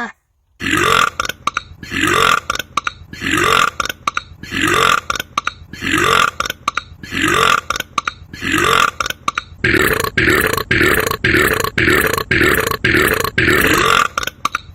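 A man's belch sound repeated over and over at a steady, even rhythm, each burst dropping in pitch. About ten seconds in, the pattern changes and sharper clicks come between the bursts.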